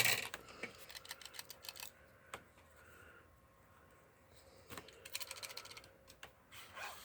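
Clusters of small plastic clicks and rattles as toy packaging is cut and pulled apart to free a wind-up penguin toy, busiest at the start and again about five seconds in.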